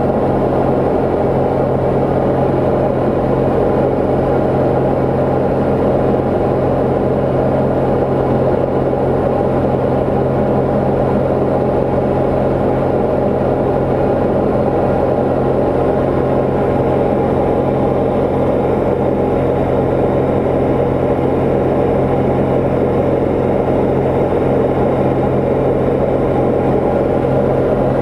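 Diamond DA40 single-engine light aircraft in flight just after takeoff, its engine and propeller making a steady, loud drone heard from inside the cabin.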